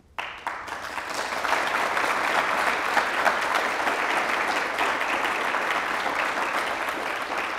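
An audience applauding, starting suddenly and holding steady.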